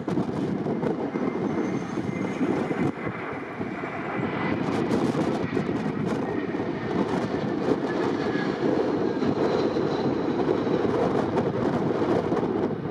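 Airbus A320-232 with IAE V2500 turbofans passing low overhead on final approach: a steady jet rumble with faint high whines that slowly fall in pitch as it goes by.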